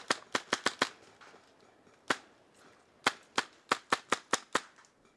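Airsoft rifles firing rapid single shots, each a sharp crack: a quick string of about six in the first second, one more about two seconds in, then another string of about seven shots from three seconds in.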